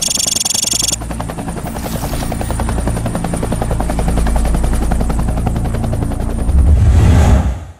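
Helicopter rotor chopping in a rapid, even rhythm over a deep rumble, swelling louder near the end and then fading out quickly.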